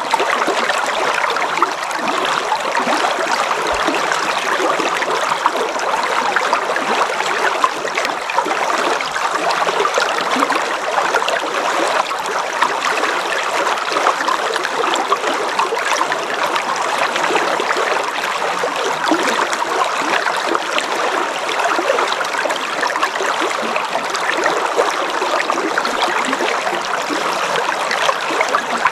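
River water flowing steadily: an even, continuous rush of running water.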